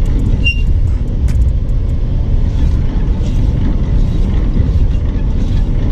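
Semi-truck making a steady low rumble, with a few light clicks in the first second and a half.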